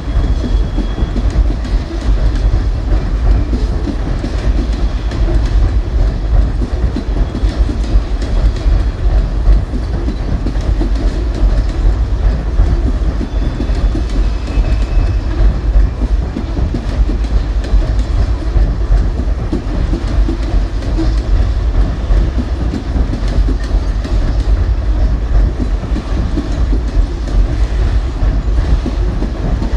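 Cumberland Mine Railroad coal train rolling past: a steady, heavy rumble of the cars with a continuous clickety-clack of wheels over the rail joints.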